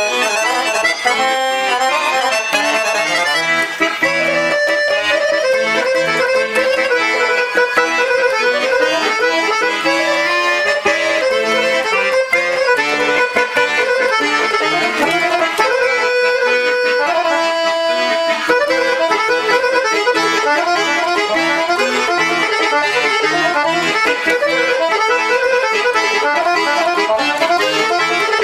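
Dallapé piano accordion playing a melody of many quick notes on the treble keys with accompaniment on the bass side. It is a sound test of the instrument after it has been serviced and tuned.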